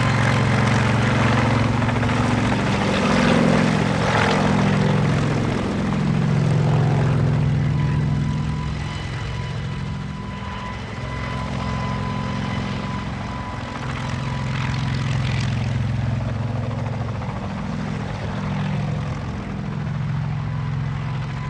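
Kamov Ka-26 helicopter with twin radial piston engines and coaxial rotors running as it hovers and manoeuvres low. The engine and rotor sound swells and fades every few seconds as the helicopter turns, with brief shifts in pitch.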